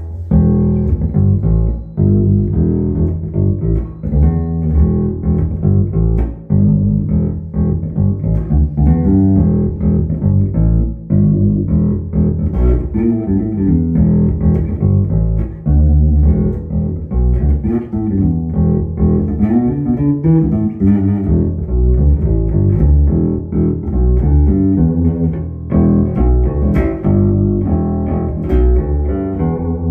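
Fender American Professional II Precision Bass played solo through a bass amp set flat, a continuous line of plucked notes in the low register.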